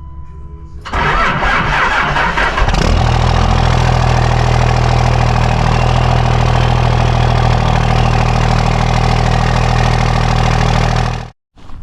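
A vehicle engine cranking and catching, then idling steadily; the sound cuts off suddenly near the end.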